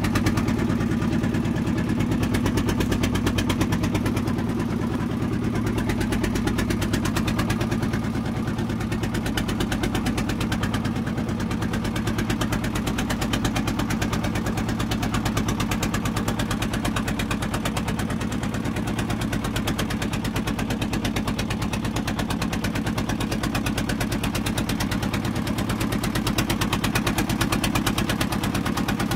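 Engine of a wooden fishing boat running steadily under way, a fast, even chugging pulse with a low drone.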